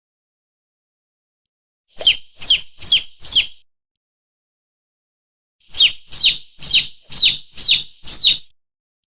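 Lure call for mongoose and monitor lizard: shrill, bird-like distress chirps, each sweeping quickly down in pitch, repeated in a series of four and then, after a pause, a series of six, about two to three a second, with dead silence between the series.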